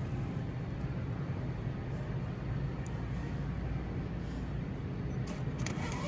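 Steady low hum and hiss of a supermarket's background noise, with a few faint clicks near the end.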